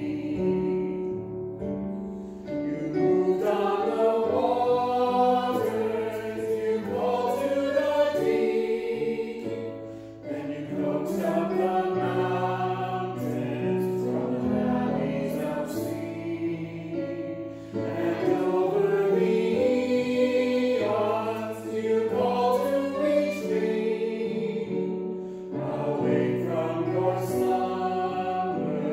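Small group of men's and women's voices singing a hymn together, in long phrases with brief breaths between them.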